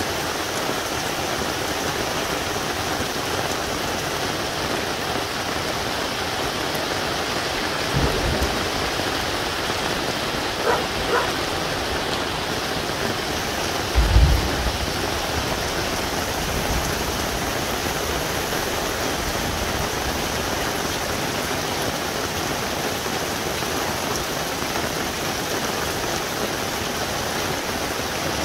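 Heavy steady rain falling, with thunder rumbling twice, a short rumble about eight seconds in and a louder one about fourteen seconds in. A dog barks twice, about eleven seconds in.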